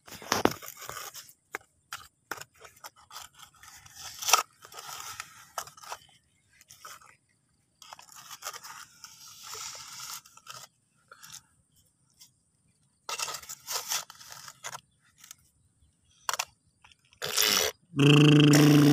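Plastic toy excavator's bucket scraping and digging through wet, clumpy mud, in short irregular scrapes and crunches with brief silent gaps. Near the end a loud, steady, low drone cuts in.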